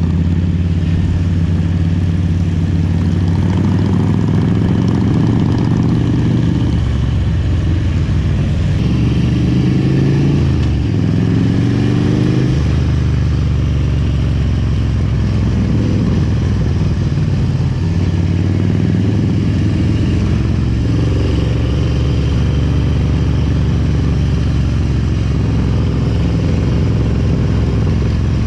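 Harley-Davidson Road King's Twin Cam 88 V-twin running under way. The engine note rises and falls with the throttle, several times in the middle stretch, with a sudden drop about halfway through, then settles to a steady cruise.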